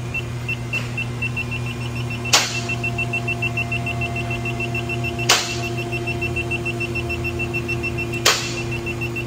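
ATS Bullseye IR CO2 leak detector sounding its leak alert: a rapid, even train of short high beeps, about five a second, as its probe picks up CO2 escaping at the EVAP system's filler neck area. A sharp click comes about every three seconds over a steady low hum.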